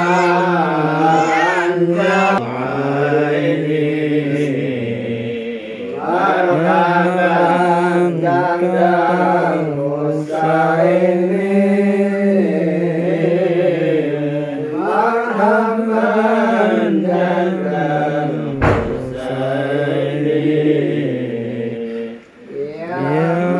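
A group of men chanting Islamic devotional verses (shalawat) together in long, drawn-out melodic phrases, with short pauses for breath every few seconds.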